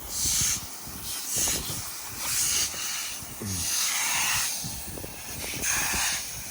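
Wet swishing and hissing from fresh exposed-aggregate concrete being washed off with water and stiff brooms, coming in strokes about once a second. This is the retarded top layer of cement being scrubbed away to bare the stones.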